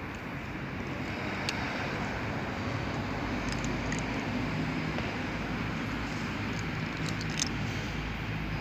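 Steady low hum of a motor vehicle's engine running, with a few faint clicks.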